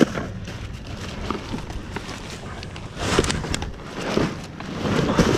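Plastic trash bags rustling and crinkling while gloved hands shift them and the boxes under them inside a dumpster, with a louder burst of crackling and knocking about three seconds in.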